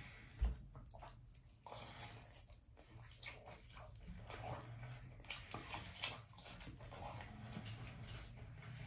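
Close-up chewing and wet mouth sounds of someone eating saucy BBQ pork ribs: irregular soft smacks and clicks, with one brief knock about half a second in.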